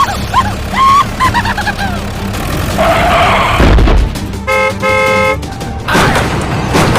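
A vehicle horn toots twice in quick succession a little past the middle, a short blast and then a slightly longer one. Before it come squeaky, chirping sound effects and a brief rushing noise.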